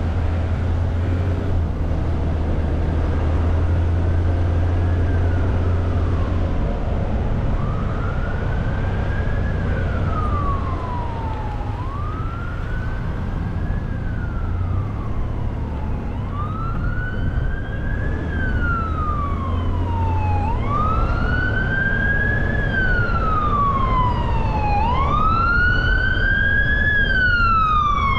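Emergency vehicle siren on a slow wail, its pitch rising and falling about every four seconds and growing louder toward the end as it approaches. Underneath is the steady low drone of the car being driven.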